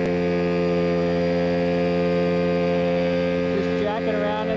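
Mosquito Air ultralight helicopter in flight, heard from on board: engine and rotor running at steady speed as a constant hum with several held tones.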